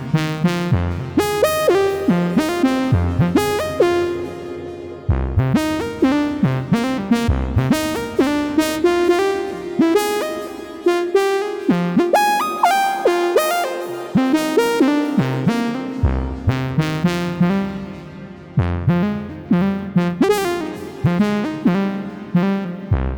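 Yamaha MONTAGE M synthesizer playing a fast, rhythmic run of plucked notes over low bass notes, with short pitch glides bending up between them.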